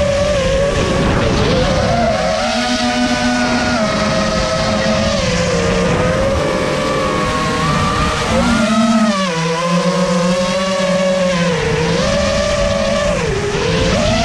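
Brushless motors and propellers of a 5-inch FPV racing quadcopter whining, the pitch rising and dipping again and again with the throttle, heard through the quad's own onboard camera.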